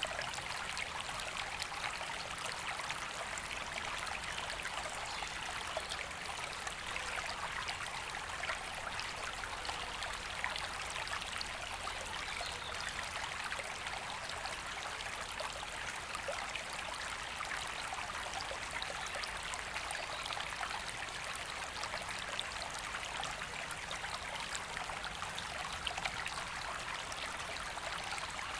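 River water flowing steadily over stones, an even rushing burble with no pauses.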